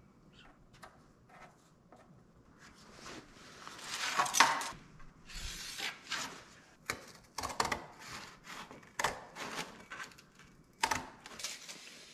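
Pen scraping along a metal speed square on a cardboard template, building to a loud scratchy rub about four seconds in, then scattered sharp clicks and knocks of tools being handled on the steel bench.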